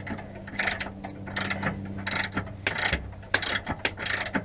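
Hand ratchet wrench clicking in quick repeated strokes, about two to three a second, as a stuck bolt is worked loose.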